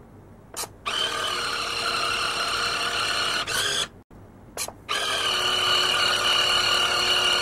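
Small electric pump of an automatic shot dispenser running with a steady whine, pouring a 25 ml shot. It runs twice, each time for about two and a half seconds, with short clicks before and between the runs.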